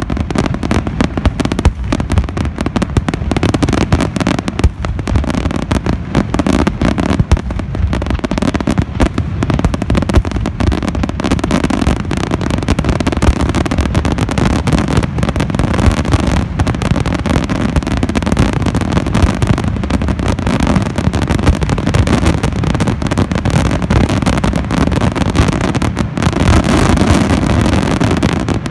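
Aerial fireworks shells bursting in a rapid, unbroken barrage. The individual bangs merge into a continuous rumble with sharp cracks, a little louder near the end.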